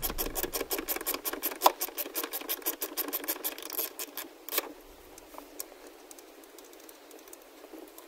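Socket ratchet backing out a 10 mm bolt, clicking in a fast, even run for about four seconds. It stops with a single knock, followed by a few faint scattered clicks.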